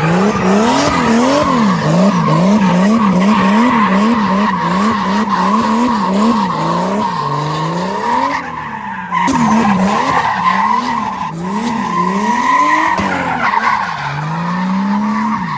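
BMW E30's turbocharged M52 straight-six drifting, its revs rising and falling about twice a second, while the tyres squeal steadily. Near the end the revs climb in one longer, slower rise.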